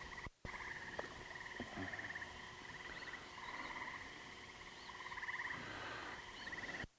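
A chorus of frogs trilling: overlapping pulsed trills, a higher one and a lower one, rising and fading in stretches of a second or so.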